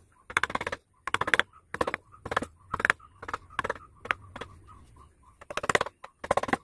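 Carving gouge pushed by hand through wood, shaving off chips: about ten short cuts at uneven intervals.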